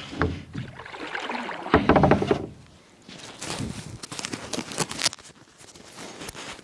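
Handling noise from a camera being adjusted close to the microphone: a loud bump and rustling about two seconds in, then a run of small clicks and knocks.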